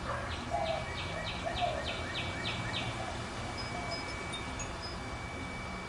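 A bird calling a quick run of about nine harsh, repeated notes, roughly three a second, that stops about three seconds in, with a few faint high chirps after it. A steady high whine runs underneath throughout.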